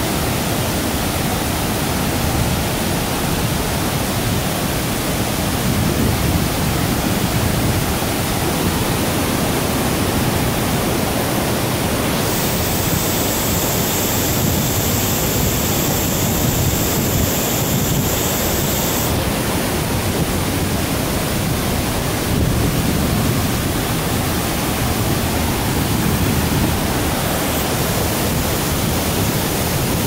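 Waterfall and the rocky stream below it rushing in a steady, dense roar of water. For about seven seconds midway the hiss grows brighter.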